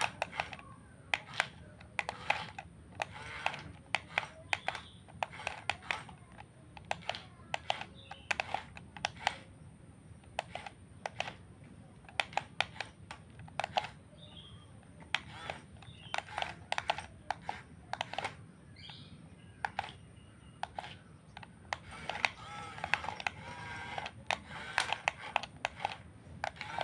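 Irregular small clicks and clatters of a radio-controlled excavator and bulldozer working dirt, coming in quick clusters over a low steady hum.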